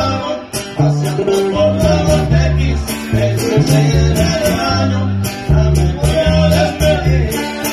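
Regional Mexican band playing live: strummed and picked guitars over a stepping bass line, with a steady percussive beat.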